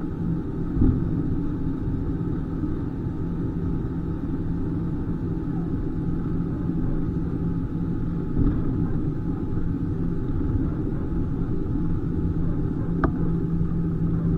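Steady low rumble and hum inside the cabin of an Airbus A320, with a dull thump about a second in, another at about eight and a half seconds, and a short sharp click near the end.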